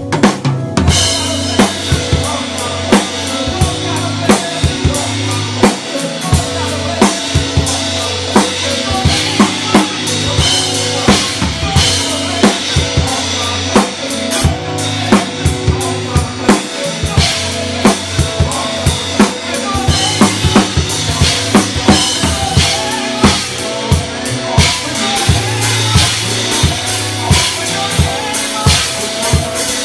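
Gospel drumming on a drum kit: steady kick drum, snare and cymbal hits several times a second, over sustained pitched notes from the rest of the band.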